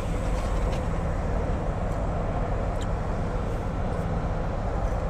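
Steady noise inside a parked car: the engine idling with the air-conditioning fan blowing.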